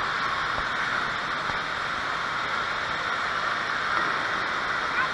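Steady hiss and rush of water spraying from a water-play structure's jets, echoing in a large indoor water park hall.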